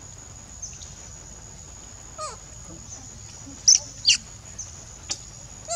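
Newborn macaque squeaking: about six short, high-pitched calls that each slide down in pitch, the two loudest close together a little past the middle.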